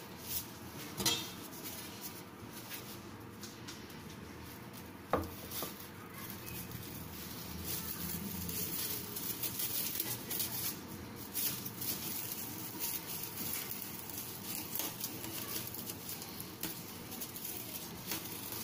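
Plastic film crinkling and rustling as it is wrapped around a knife's wooden handle, with irregular crackles and one sharp click about five seconds in.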